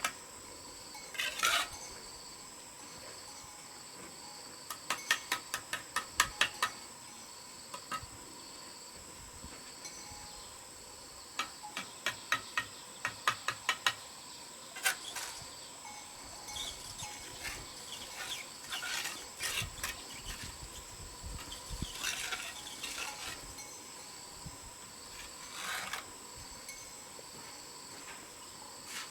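Insects chirring steadily and high, with runs of quick sharp taps of metal on hard material and stretches of rough scraping, typical of bricklaying work with a trowel.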